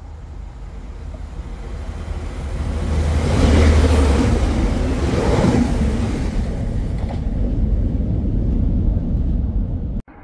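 A train passing close by: a heavy low rumble that builds to its loudest about four seconds in, stays loud, then cuts off suddenly near the end.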